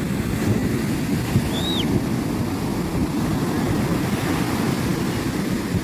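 Sea waves at the shore with wind buffeting the microphone, a steady low rumble. A brief high chirp sounds about a second and a half in.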